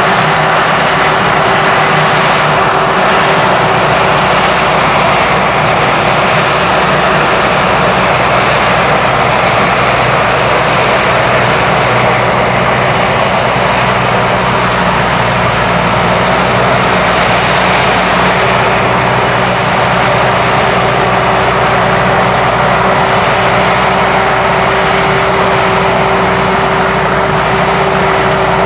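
Sakpattana SS-300 'Black Bird' combine harvester, with its five-cylinder 170 hp engine, running steadily under load while harvesting. The steady drone carries a high, even whine from the machine's running gear.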